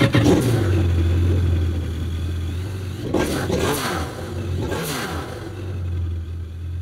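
Yamaha FX SVHO WaveRunner's supercharged 1.8-litre four-cylinder engine idling just after it has caught, loudest at first and then settling to a steady idle.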